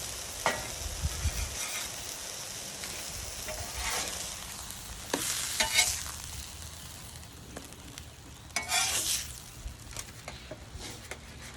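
Chicken smash tacos, seasoned chicken pressed onto tortillas, sizzling steadily in olive oil in a hot pan. Several louder scrapes and clatters of the tacos being worked in the pan, the loudest about five to six seconds in and again near nine seconds.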